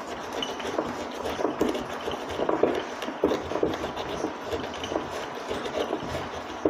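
Pestle pounding and grinding red chilies, garlic and fried shrimp paste in a wooden cobek mortar to make sambal: dull knocks of wood on wood, about two a second, with scraping between them.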